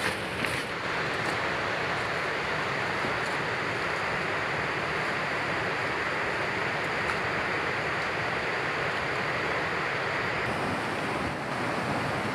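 Steady rush of a flowing river, with a couple of brief rustles near the start.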